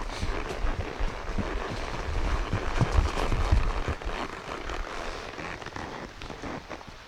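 A horse's hooves going fast over a trail covered in dry fallen leaves: crackling leaf litter and dull irregular thuds, mixed with wind and rubbing noise on the phone's microphone. The noise grows quieter over the last couple of seconds.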